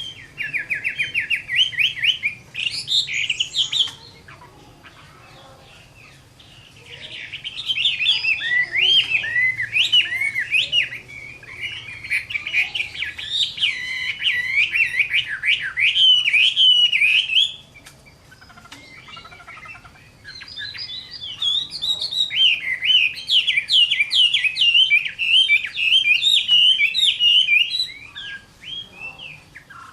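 Chinese hwamei (Garrulax canorus) singing its vigorous 'fighting' song: bouts of rapid, varied, sliding whistled phrases. There are three bouts, broken by short pauses of a few seconds.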